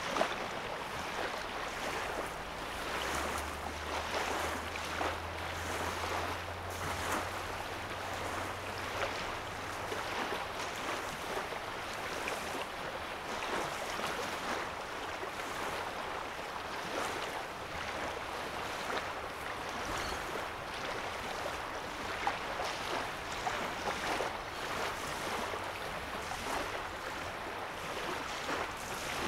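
Small lake waves lapping at the shoreline: a steady wash of many small splashes. A low steady hum runs beneath from about three to ten seconds in.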